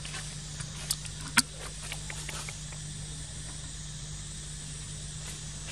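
Forest ambience: a steady high insect drone over a faint low hum, with a few short sharp clicks, the loudest about a second and a half in.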